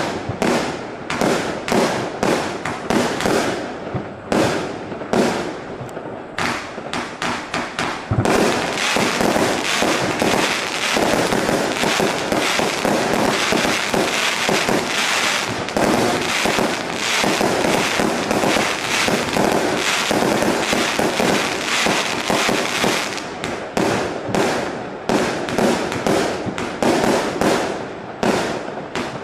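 A 200-shot compound fireworks cake firing. Separate launches and bursts come a few times a second for the first eight seconds or so. Then the shots pile into a dense, continuous barrage for about fifteen seconds, and thin back to separate shots near the end.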